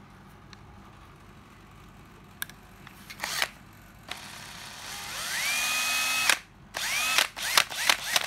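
Hitachi 12V cordless drill with a 13 mm chuck being trigger-tested. About five seconds in, the motor spins up with a rising whine, runs at speed for about a second and stops abruptly on its brake. It is then blipped several times in quick succession, each a short rising whine cut off by the brake, showing that the variable-speed trigger and brake are working.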